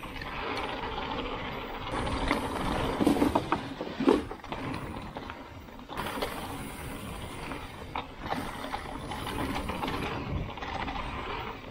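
Mountain bike riding down a rocky singletrack: the rear hub's freewheel ratchet clicking as it coasts, with tyres, chain and frame rattling and knocking over rocks. The loudest knock comes about four seconds in.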